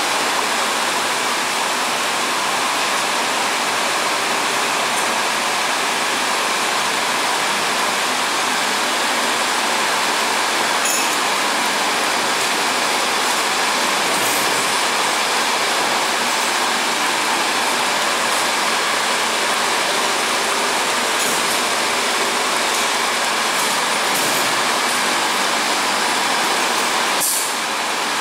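Woodworking roller power feeder running unloaded: its electric motor and gear drive turn the rubber feed rollers with a steady, even noise. A brief click comes near the end.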